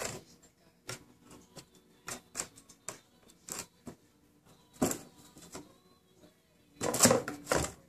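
Cats playing with a cardboard box on a hardwood floor: scattered clicks, scratches and bumps as paws and claws hit the box and the floor, with a louder flurry of knocks and scraping near the end.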